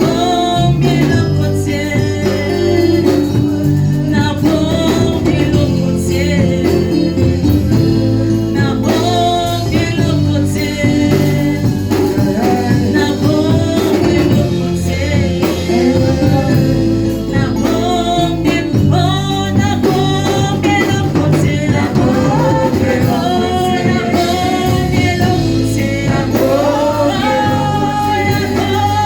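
Gospel worship music: voices singing a song over instrumental accompaniment with a steady bass line.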